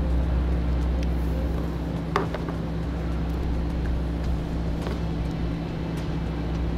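A steady low hum, with a few short, light clicks as a rubber brake-booster vacuum hose is snipped with a tubing cutter and its cut ends handled.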